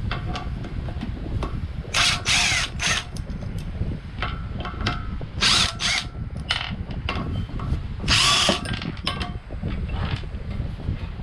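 Power drill/driver spinning in three short bursts, with small clicks and clinks of parts and tools between them.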